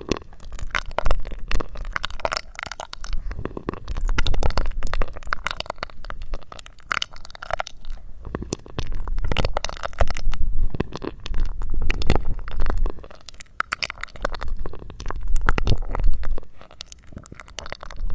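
ASMR straw 'brain-sucking' trigger: sucking air through a drinking straw held against a pair of microphones, giving crackling, wet clicks over low rumbling gusts that come in swells of a second or two.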